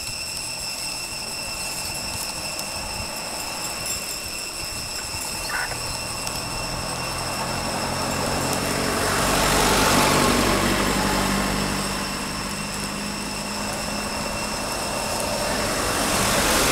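A motor vehicle's engine running as it approaches and passes, loudest about ten seconds in, then fading, with another engine rising near the end.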